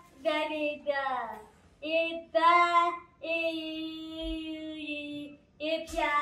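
A young boy singing alone with no accompaniment: a few short sung phrases, then one long held note in the middle, then another short phrase near the end.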